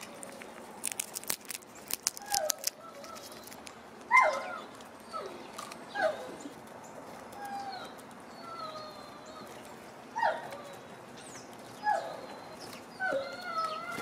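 An animal calling over and over, each call a short note that falls steeply in pitch, repeated every second or two. It follows a quick run of sharp clicks about one to three seconds in.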